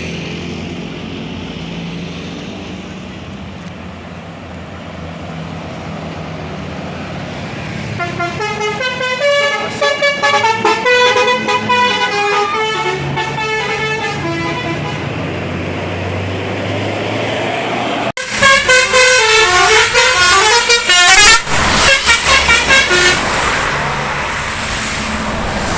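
A bus engine runs, then from about eight seconds in a tour bus's multi-tone 'telolet' horn plays a quick tune that steps up and down in pitch. After a sudden cut near eighteen seconds, another telolet horn plays a louder tune for several seconds before the engine sound returns.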